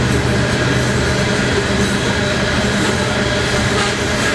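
A long string of coal hopper cars rolling past close by: a steady rumble and rattle of steel wheels on the rails.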